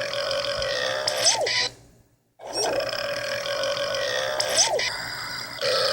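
Long, drawn-out burps, each held at a steady pitch for about two and a half seconds and ending with a quick rise and fall in pitch. One burp ends about two seconds in, a second follows after a brief silence, and a third starts near the end.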